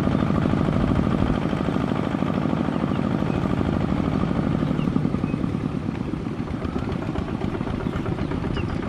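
Kubota RT155 single-cylinder diesel engine of a two-wheel walking tractor running steadily under load as it pulls a disc plough and cage wheels through flooded paddy mud. It grows a little quieter in the second half as the machine moves away.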